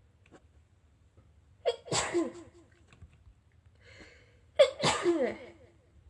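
A young woman sneezing twice, about three seconds apart, each a short voiced 'ha' breaking into a sharp burst, with a quick breath in just before the second.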